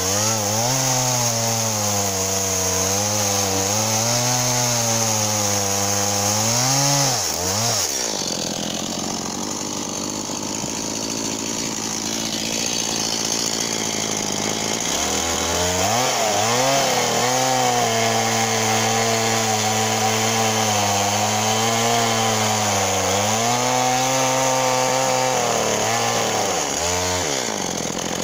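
Stihl MS 170 two-stroke chainsaw running, its engine note rising and falling as it works, most likely cutting wood. About eight seconds in the steady note gives way to a rougher, noisier stretch for about seven seconds before returning, and near the end it dips quickly several times.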